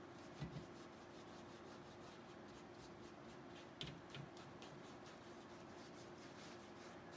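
Faint scratching of a paintbrush stroking paint onto a stretched canvas, with two soft knocks, about half a second and four seconds in, over a faint steady hum.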